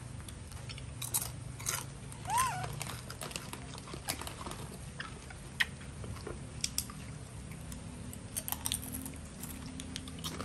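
Baby monkeys eating and scuffling over a banana in a wire cage: chewing and scattered clicks and rustles, with one brief squeak about two seconds in.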